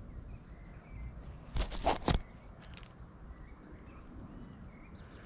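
Faint bird chirps over a low outdoor rumble, broken about a second and a half in by three quick sharp rustling or knocking noises close to the microphone.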